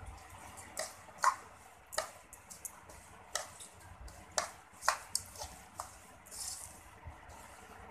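Steel spoon stirring sugar into roasted gram flour in a metal pan: gritty scrapes and sharp clinks of spoon on metal at an irregular pace, the loudest clinks about a second in and near the five-second mark.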